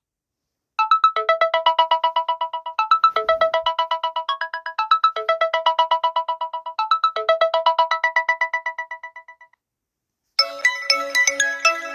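Samsung Galaxy A30 ringtone: a fast run of bright chiming notes in a short melody that repeats about every two seconds, fading out about nine and a half seconds in. After a short gap a different ringtone starts near the end.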